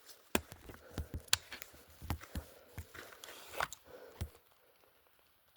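A scattered run of short clicks and snaps at uneven intervals, then near quiet for the last second.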